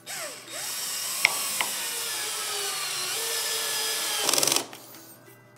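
A cordless drill with a Phillips bit drives a screw into wood, its motor whine sinking slightly in pitch under load. It ends with a loud, short burst of rapid clicking as the clutch slips when the screw seats.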